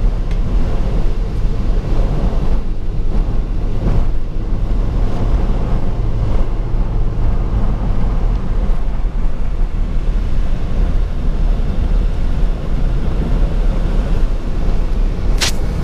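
Steady in-cabin noise of a car driving on a rain-soaked highway: tyre spray and hiss on wet pavement with a low engine and road rumble. A sharp click comes near the end.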